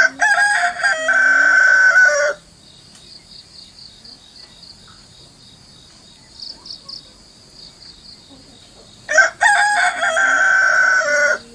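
Bangkok game rooster crowing twice, about nine seconds apart; each crow lasts a little over two seconds and ends on a long held note. A crow the owner calls strange. Insects trill faintly between the crows.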